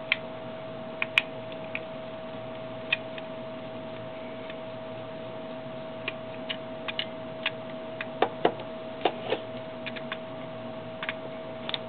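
Small precision screwdriver clicking against screws and the plastic case of a PocketWizard Flex TT5 as the hot-shoe screws are backed out. The light clicks come scattered, more often in the second half, over a steady hum.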